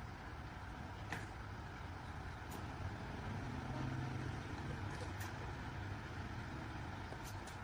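A low engine hum running steadily, swelling slightly about four seconds in, with a few light clicks.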